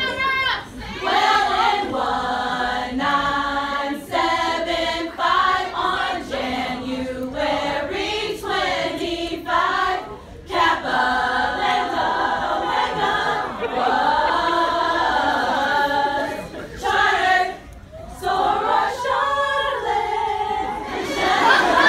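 A group of women singing together, unaccompanied, in phrases with brief breaks about ten seconds in and again near eighteen seconds.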